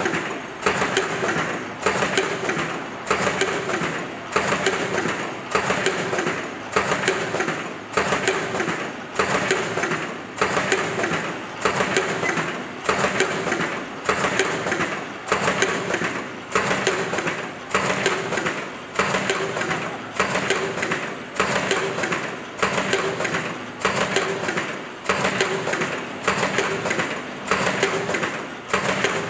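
NBL-4800F fully automatic flat face mask machine running, a noisy mechanical burst that starts sharply and fades, repeating about once a second as the machine cycles.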